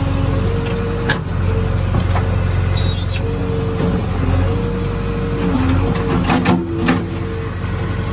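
JCB 3DX backhoe loader's diesel engine running steadily, with a whine that starts and stops at several points. A sharp clank comes about a second in, and a few more follow late on.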